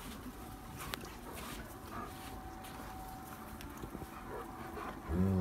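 German Shepherds play-fighting, with faint scuffling and movement. Near the end a dog starts a low growl.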